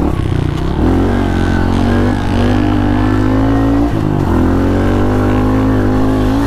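Pit bike engine running under throttle while riding, its pitch climbing steadily, with a brief drop about a second in and a sharper drop near four seconds in before it climbs again.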